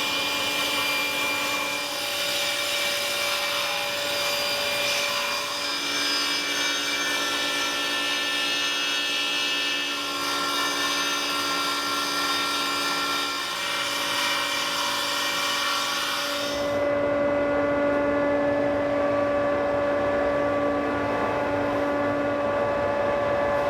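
Table saw running and cutting through the laminated hardwood breadboard, squaring the edges and bevelling them at 45 degrees: a steady motor hum under the hiss of the cut. About two-thirds of the way through, the high hiss falls away and a lower rumble takes over.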